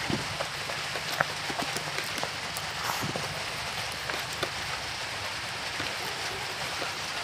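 Close-miked eating sounds: fingers mixing rice and pork curry on a plate, with many small wet clicks and smacks, over a steady hiss.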